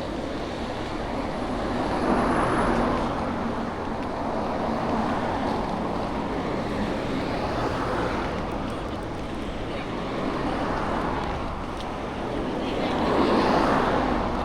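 Road traffic: a string of vehicles passing close by, each one rising and fading, about five passes in all, the loudest near the start and near the end.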